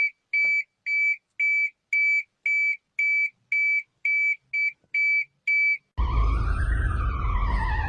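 Emergency alert alarm tones: a high electronic beep repeating about twice a second. About six seconds in it switches to a siren that wails slowly up and down over a rumbling hiss.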